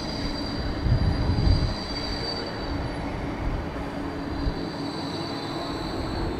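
A Bombardier E-class tram passing close by: a steady high-pitched whine over the low rumble of its wheels on the rails, the whine fading near the end.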